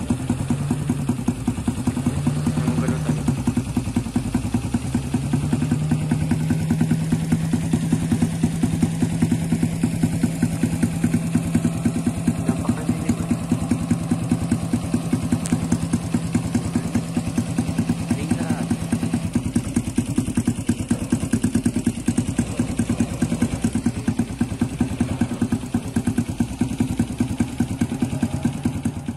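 A motorcycle engine idles close by with a fast, even putter. Under it a second engine drones, rising and falling a few times in the first five seconds, then holding steady until about two-thirds of the way through.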